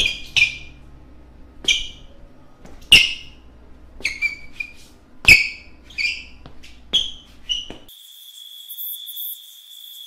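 A run of about nine short, sharp, high chirps with quick decays, then near the end the background drops out completely and a cricket-chirping sound effect takes over, the stock 'awkward silence' gag.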